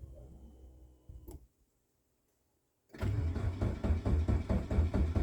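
Chevy Tracker's engine turning over on the starter, a loud rhythmic cranking that begins about three seconds in after a quiet pause. It is the first start attempt with a newly fitted fuel pump after the engine has sat all winter.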